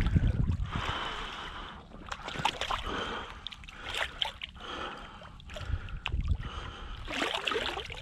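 Water sloshing and splashing in repeated surges as a large red drum is swished back and forth by its tail in the shallows, being revived before release.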